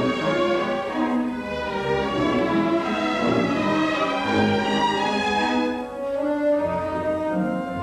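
Orchestral music with bowed strings playing sustained notes.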